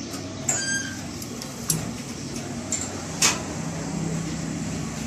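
Metal parts and tools clinking and knocking as a gas compressor is worked on by hand, with one ringing metallic clink and a few sharp knocks. A steady low hum runs underneath and grows louder about four seconds in.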